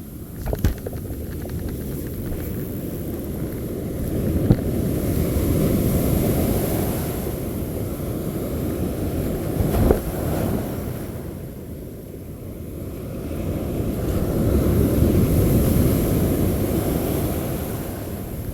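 Surf breaking and washing up the beach, swelling and fading twice, with wind buffeting the microphone and a few short knocks.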